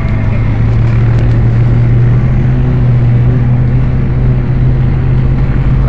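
Chevrolet Suburban's engine pulling hard up a sand dune, heard from inside the cab: a loud, steady drone whose pitch creeps up slightly.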